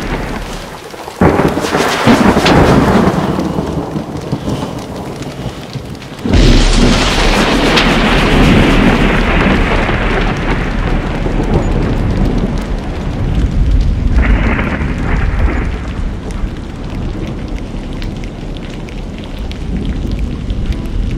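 Thunderstorm sound effect played over the hall's speakers: steady rain hiss with two sudden thunderclaps, about a second in and about six seconds in, each rumbling away over several seconds.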